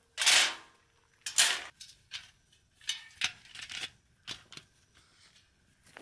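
Zane Arts LOLO metal low camp table being unfolded, its legs swinging out and clacking into place. It gives a string of metal clacks and scrapes, the two loudest within the first second and a half.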